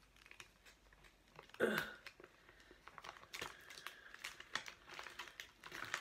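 Crinkling of a hydrogel face-mask pouch as fingers work inside it to get the mask out, a run of small crackles that grows busier in the second half, with one louder brief noise about two seconds in.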